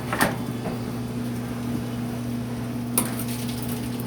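Two sharp knocks of hard objects, one right at the start and a second about three seconds later, over a steady low hum.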